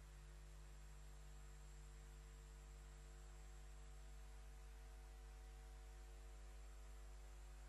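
Near silence: a steady low hum with faint hiss on the audio feed, with no other sound.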